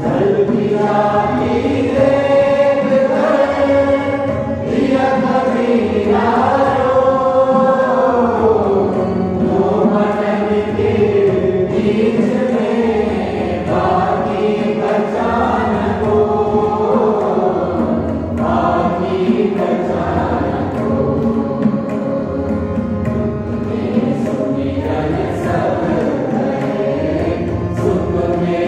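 A group of voices singing a song together, with long sustained melodic lines.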